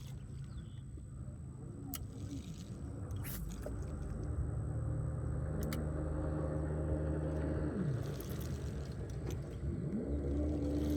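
A motorboat's engine running on the lake, growing louder, with its pitch dropping about eight seconds in and rising again about two seconds later as it changes throttle.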